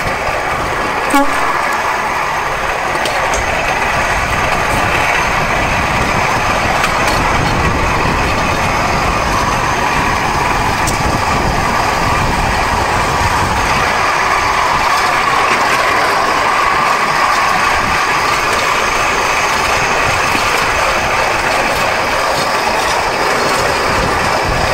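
Pedal-powered rail cycle rolling along railway track: a steady clatter and rattle of its wheels on the rails and its metal frame, with a single sharp knock about a second in.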